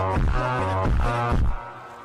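Electronic background music with heavy bass and repeated falling bass sweeps. It cuts off sharply about one and a half seconds in, leaving a quiet fading tail.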